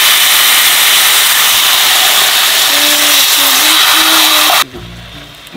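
Marinated pork ribs (yangnyeom dwaeji galbi) sizzling loudly in a frying pan, a steady hiss that cuts off suddenly near the end.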